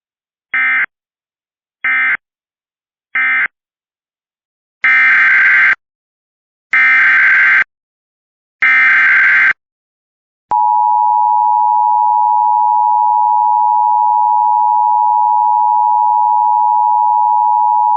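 Emergency Alert System signalling: three short SAME end-of-message data bursts (a harsh digital screech), then three longer SAME header bursts, then about ten seconds in the steady two-tone EAS attention signal (853 and 960 Hz) begins and holds.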